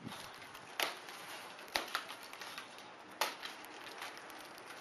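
Foam packing blocks being cut and pulled apart at their taped seam: a few sharp clicks and scrapes over a steady background hiss.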